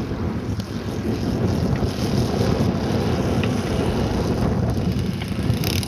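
Wind buffeting the microphone over the low, throttled-back running of a petrol-converted model aircraft engine as the model comes in to land, with a brief crackle near the end.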